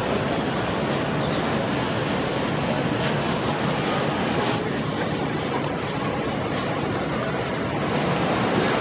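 Outboard engines of a speedboat running steadily as it passes at low speed, mixed with water wash and wind.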